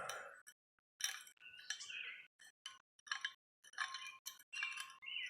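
Metal parts of a homemade propane burner clinking and scraping as the orifice tube is shifted inside the burner tube: a string of short, irregular clinks, some with a brief metallic ring.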